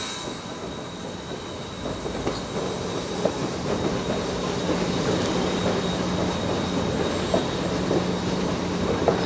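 Train rolling past, its wheels clicking sharply over rail joints every second or two against a steady low hum and rumble.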